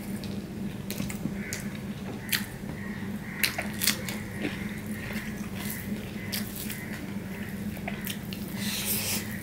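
A person eating rice mixed with mashed taro leaves by hand, with wet smacking and chewing and scattered short sharp smacks, the loudest about three and a half and four seconds in. A steady low hum runs underneath.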